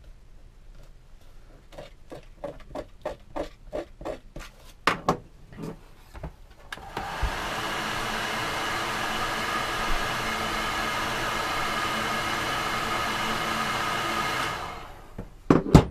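Quick scraping strokes, about three a second, as a blade scrapes sticker residue off a plastic sun visor. Then a handheld electric heat gun runs steadily for about seven seconds, its fan whirring with a steady whine, and winds down, followed by two sharp knocks near the end.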